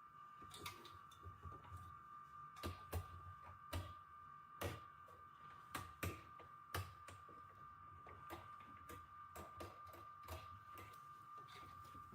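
Irregular light clicks and taps of hands handling computer parts, over a faint steady high-pitched whine.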